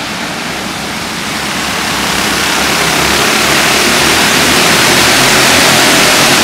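A pack of racing go-karts running around a dirt oval, their many engines blending into one dense rushing noise that grows louder over the first few seconds as the pack comes past and then holds steady.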